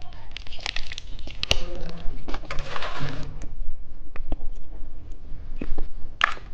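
Plastic candy wrappers rustling and crinkling as packaged sweets are handled, with many light clicks and taps.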